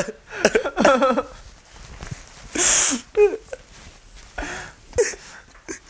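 A young man crying: broken, wavering sobs, a loud sniff about two and a half seconds in, and more short sniffs and whimpers.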